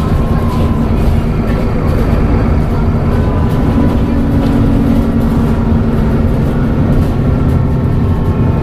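Dennis Trident double-deck bus under way, its diesel engine running steadily with a low rumble and a thin, high turbo whistle over it.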